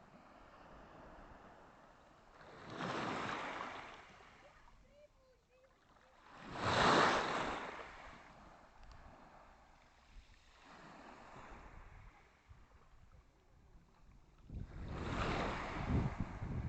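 Small sea waves washing onto the shore, three times: about three seconds in, louder about seven seconds in, and again near the end.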